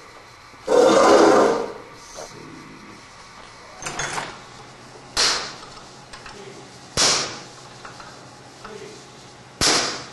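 A hammer striking a steel punch four times, spaced a second or two apart, each blow a sharp metallic clank with a brief ring, to drive a stubborn die out of a Meyer pecan cracker part clamped in a vise. Near the start there is a louder noise lasting about a second.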